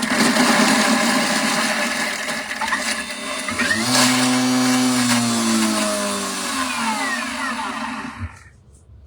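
Electric food processor running for about eight seconds, mincing onion and garlic. Its motor pitch slides down partway through, and then it cuts off.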